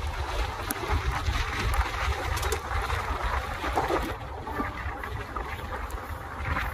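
Swarna Jayanti Express passenger train running through a station, heard from the open coach door: steady wheel and rail noise under heavy wind buffeting on the microphone.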